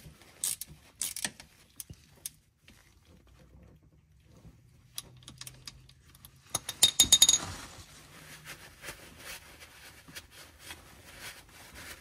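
Ratchet wrench clicking in short runs as a transmission drain plug is threaded back in and tightened, with metallic clinks from the tool. A dense burst of clicks with ringing clinks comes about seven seconds in, then faster, fainter ticking.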